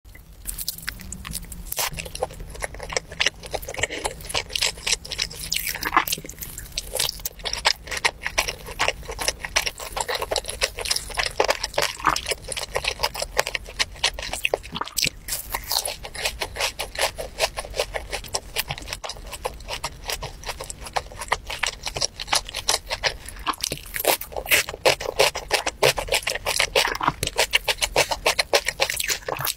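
A person biting into and chewing saucy glazed grilled chicken: a dense, continuous run of small mouth clicks and smacks.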